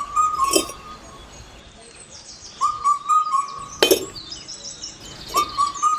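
Birds calling: a short call repeated about every three seconds, with quicker high chirps between and a few sharp clicks.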